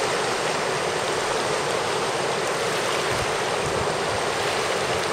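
Kenai River rapids rushing steadily, whitewater breaking over rocks close by.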